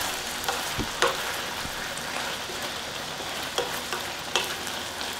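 Potatoes and shishito peppers sizzling in a frying pan in their reduced soy-and-chili braising glaze, stirred with a wooden spatula. The spatula knocks against the pan a few times.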